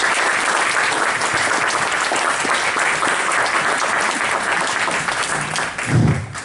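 Audience applauding steadily, a dense patter of many hands clapping that dies away near the end, where a voice briefly sounds.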